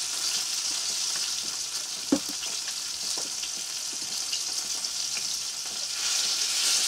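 Crucian carp frying in hot oil in a pan, a steady high sizzle. There is a sharp knock about two seconds in and a few small clicks, and the sizzle grows louder near the end.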